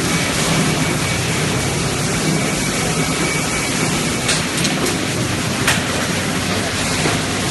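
Extrusion blow molding machine running: a steady, dense machine noise with a low hum, and a couple of short hisses about four and a half and nearly six seconds in.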